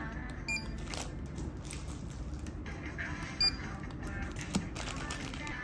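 Handheld barcode scanner beeping twice as it reads items' barcodes at a checkout: a short high beep about half a second in and another about three and a half seconds in. Between the beeps, plastic-wrapped goods crinkle and tap as they are handled.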